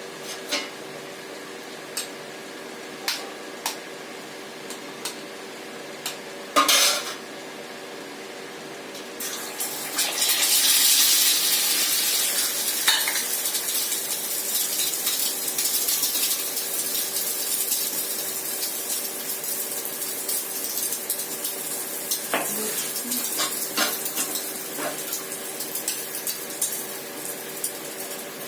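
Metal utensils clicking against a pan, with a louder clatter about seven seconds in; then, about ten seconds in, a steady sizzle starts as egg fries in the pan, with occasional taps of the utensil.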